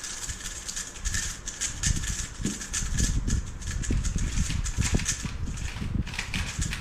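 A 3x3 speedcube being turned fast: a rapid, uneven stream of plastic clicks and clacks from the layers snapping round, starting about a second in.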